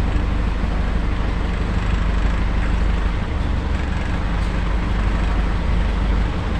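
A vehicle's engine running steadily, a low even hum, under constant road noise while driving in traffic.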